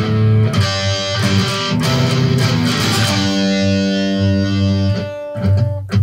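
Homemade electric baritone guitar, capoed up with an ice-cream-stick capo and played through an amplifier, strumming chords. About three seconds in, a chord is left to ring for a couple of seconds. Near the end the sound briefly drops away before the strumming picks up again.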